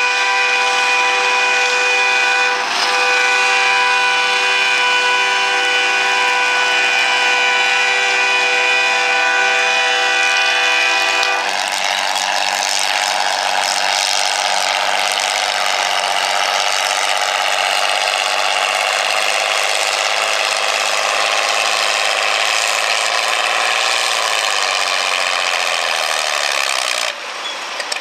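Farmall 460 tractor engine under full load, pulling a weight-transfer sled. It holds a steady high pitch at first; about eleven seconds in the sound turns rougher and the revs slowly fall as the sled's load builds, and it quietens near the end as the pull stops.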